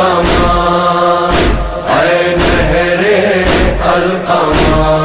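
Noha recording: a male chorus holds a chanted line in several voices over a steady percussive beat about once a second.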